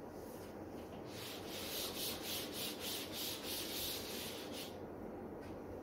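Quick scratchy rubbing strokes on a writing surface, about three a second, starting about a second in and stopping near the end.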